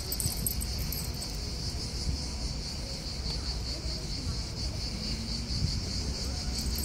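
Steady, high-pitched chirring of summer insects with a slight pulse, over a low background rumble.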